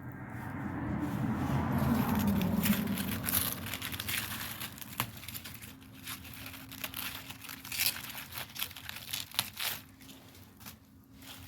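Crinkling and rustling handling noise: a swell of rustle over the first few seconds, then scattered small crackles and clicks, with a faint steady low hum underneath from about halfway through.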